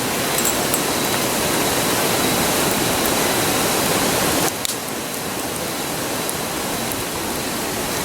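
Steady rushing of a river, with a few faint ticks of the campfire crackling early on; the rush drops abruptly a little over halfway through.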